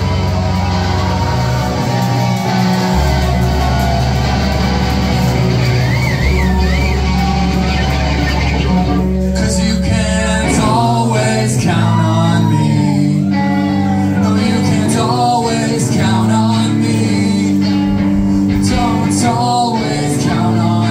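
Live rock band playing loud: electric guitars, bass and drums hold long heavy low notes for the first nine seconds or so. Then a man sings over quicker, shifting playing.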